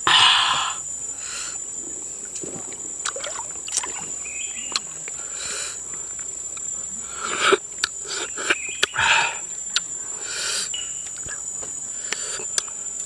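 A steady high-pitched insect drone, with scattered clicks and short crackles as a cooked prawn's shell is peeled off by hand. The loudest crackles come at the very start and twice more about seven and nine seconds in.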